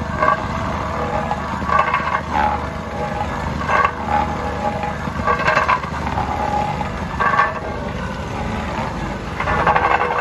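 Vibratory plate compactor's small petrol engine running while it tamps a fresh asphalt patch, a steady rumble with louder surges every second or two.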